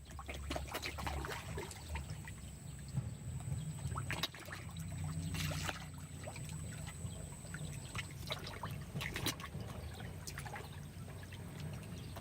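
Water trickling and splashing steadily into the pond, with irregular small splashes and drips.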